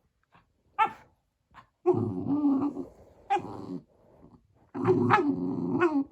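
Dogs squabbling over a toy: one dog growls in two long stretches, with short sharp barks and yelps in between, warning the other off the toy it is guarding.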